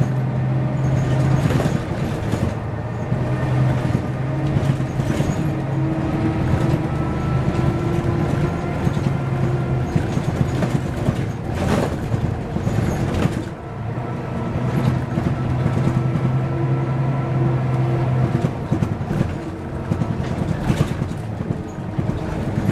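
Mercedes-Benz O405 N² city bus heard from inside the passenger compartment: the engine runs with a steady low note that fades about ten seconds in and picks up again a few seconds later. A faint rising whine sits above it, and knocks and rattles from the bodywork come through now and then.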